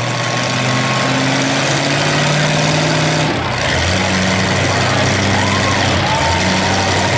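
Engines of demolition derby cars idling and running, a steady low drone that shifts lower about halfway through.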